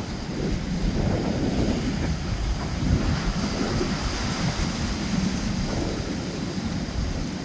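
Wind buffeting the microphone over the wash of ocean waves: a steady rushing rumble.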